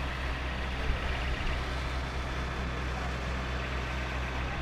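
Steady low drone of a fire engine's diesel engine running its water pump while hoses spray. A faint, rapid high beeping comes briefly about a second in.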